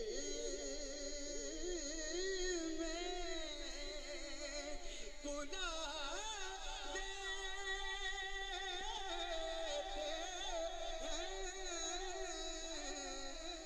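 A man singing a naat (Urdu devotional poem) into a handheld microphone, in an ornamented style with wavering, gliding pitch and long held notes.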